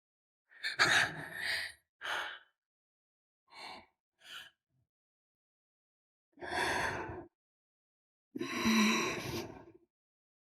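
A person's breathy sighs and gasps, six short breaths spaced out with silence between, the last one the longest and loudest.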